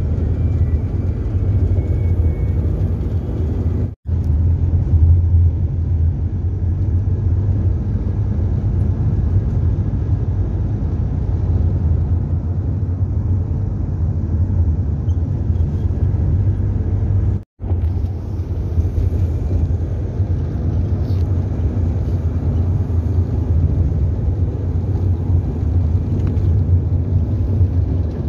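Steady low rumble of engine and road noise inside the cabin of a moving vehicle, with two very short drops to silence, one about four seconds in and one a little past halfway.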